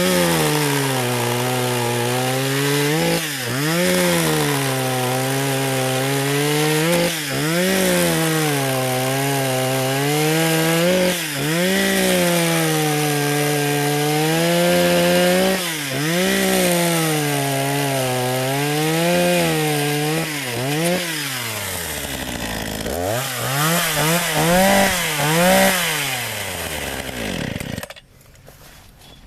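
Bluemax 45cc two-stroke chainsaw running at high revs through quick cuts in wood, its engine note dipping and recovering every few seconds. Near the end it drops to idle, revs up again briefly, then shuts off.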